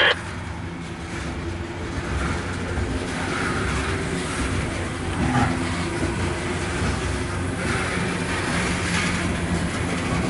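Loaded coal train's open hopper cars rolling past: a steady rumble and rattle of steel wheels on the rails.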